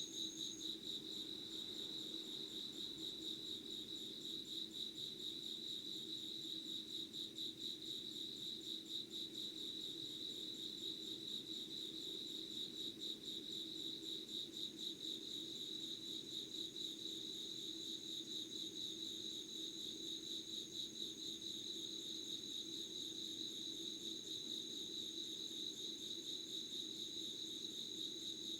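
Insects chirping in a steady chorus: a continuous fast-pulsing trill, with a second, higher trill that drops out about a second in and returns around the middle.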